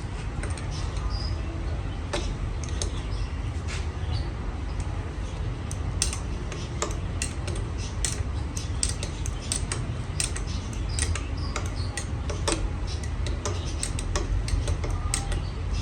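Steady low hum of running workshop machinery, with many irregular light metallic clicks and ticks that come thicker in the second half.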